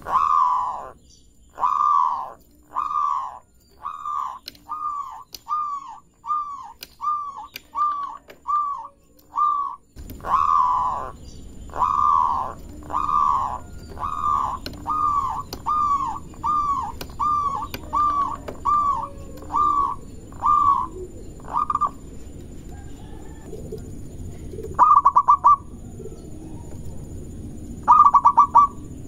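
Perkutut (zebra dove) cooing: two long runs of short, falling coo notes that come faster and faster, followed near the end by two short rattling trills.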